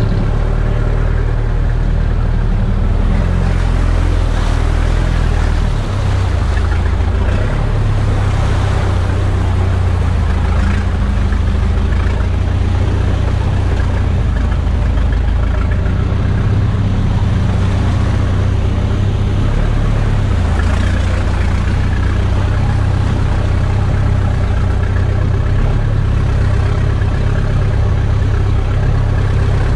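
1985 Ford Bronco's engine running as the truck is driven, its revs stepping up and down several times.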